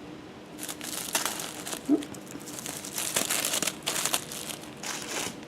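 Packaging crinkling in irregular rustles as small packets of herbs are picked up and handled.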